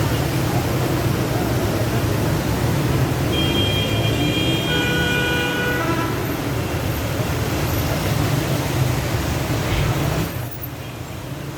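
Steady street traffic noise with a vehicle horn held for about two and a half seconds, starting around three seconds in. The noise drops sharply near the end.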